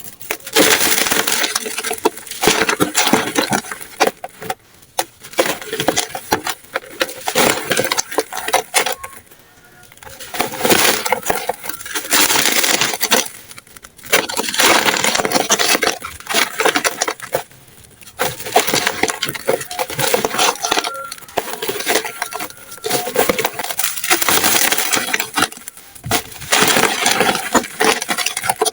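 Dry, chalky 'dusty' blocks being crushed and crumbled by hand, a dense crunchy crackle of many small snaps. It comes in bursts of a few seconds with short pauses between them.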